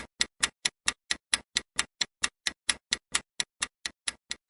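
Countdown timer sound effect: a steady, even clock-like ticking, about four and a half ticks a second.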